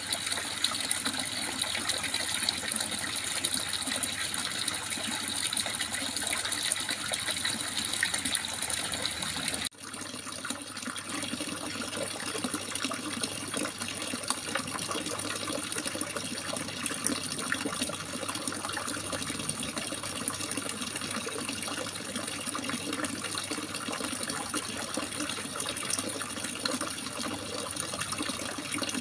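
Running water babbling and splashing steadily. About ten seconds in it cuts abruptly to a fuller, less hissy flow.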